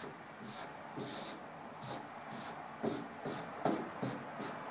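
SharkSkin vinyl wrap being rubbed down onto an ATM panel with a hand applicator: quick rubbing strokes, about two a second, with a few short squeaks of the applicator on the vinyl.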